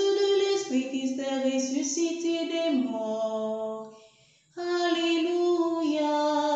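A woman singing an Easter resurrection hymn unaccompanied, in long held notes. The phrase ends about four seconds in, and after a short breath of silence the next phrase begins.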